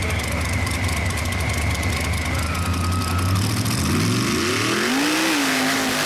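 Supercharged pulling-tractor engine running hard at full throttle under load, with a rapid crackling exhaust. Its pitch rises and then falls a few seconds in as it comes close.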